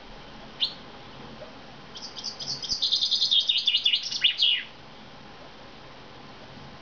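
Common chaffinch (Fringilla coelebs): one short high call about half a second in, then one song phrase of about two and a half seconds, a rapid run of high notes that ends in a few quick downward-sweeping notes.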